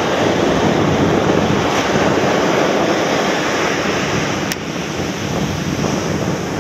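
Surf breaking and washing up a sandy beach, a steady loud rush of water, with wind buffeting the microphone.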